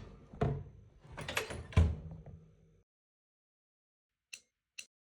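Foley door sounds: rattling and scraping movement that ends in a heavy bang about two seconds in. After a pause come two short sharp clicks.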